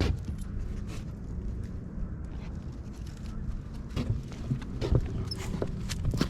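A few scattered footsteps and light ticks on a trail while walking a dog, over a low steady rumble.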